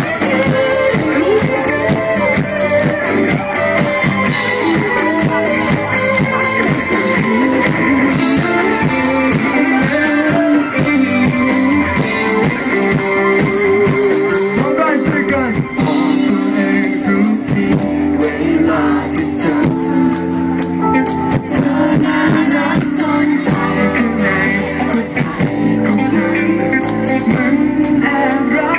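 Live pop-rock band performing, with a male singer over electric guitars and a drum kit. The music is loud and continuous.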